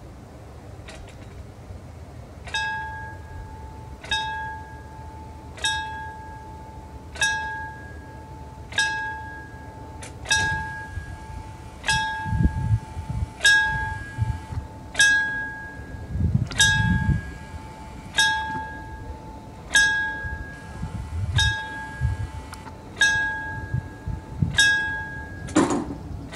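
Italian railway level-crossing bell striking about once every one and a half seconds, each strike a clear ringing tone that fades, starting about two and a half seconds in: the warning that the crossing is closing. Low rumbles come and go in the middle, and a sharp knock sounds near the end.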